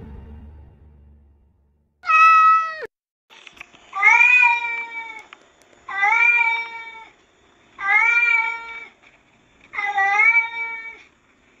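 A domestic cat meowing loudly and over and over: five long meows about two seconds apart, each rising in pitch at the start.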